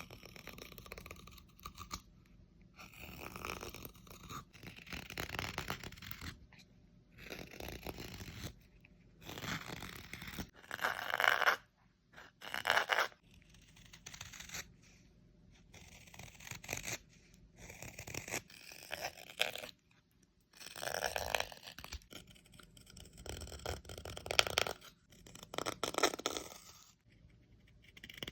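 A hand tool scraping across the wood of a carved spoon in irregular strokes, each a second or two long with short pauses between.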